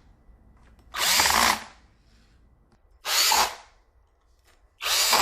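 Power drill driving assembly screws in three short bursts, each under a second, with pauses between.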